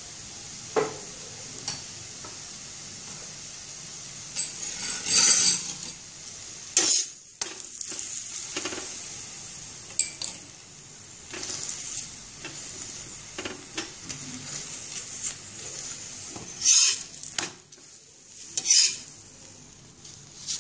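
Methi thepla flatbread sizzling in oil on a flat griddle (tawa), with a steel spatula scraping against the pan in several short loud strokes, about four times.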